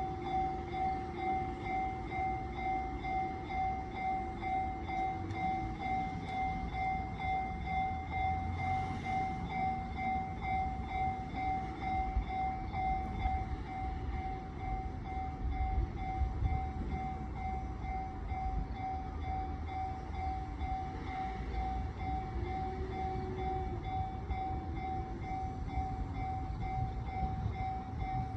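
Japanese level-crossing alarm ringing its steady, evenly pulsing 'kan-kan' tone, about one and a half beats a second. A low rumble builds from about halfway through as a Kumamoto Electric Railway 6000-series train approaches.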